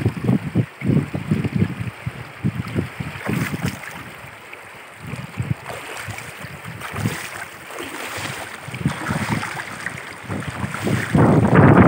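Wind buffeting the microphone in uneven gusts, over the rush of a shallow river flowing across pebbles; the wind is loudest near the end.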